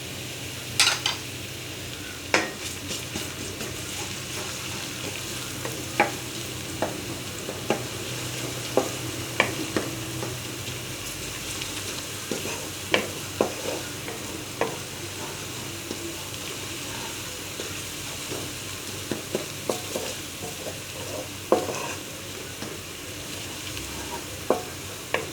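Golden-brown onions and freshly added garlic-ginger paste frying in hot oil in a cooking pot, giving a steady sizzle. A spoon stirs through it, knocking against the pot at irregular moments.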